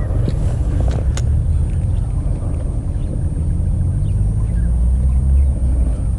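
Wind buffeting the microphone: a loud, steady low rumble, with a single sharp click about a second in and a faint thin high tone.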